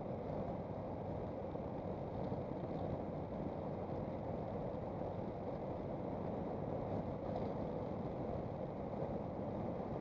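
Steady wind and road noise from a Honda Gold Wing motorcycle cruising on a wet road, even and unchanging throughout.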